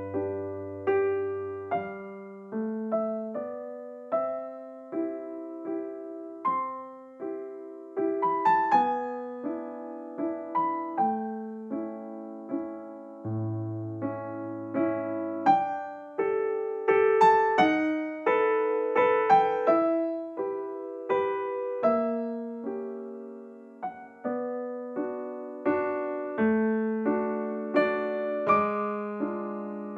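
Background piano music: a gentle melody of single struck notes and chords, each ringing and fading before the next.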